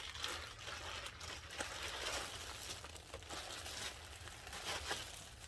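Packing paper crinkling and rustling in irregular handling noises with small crackles as a handbag is unwrapped.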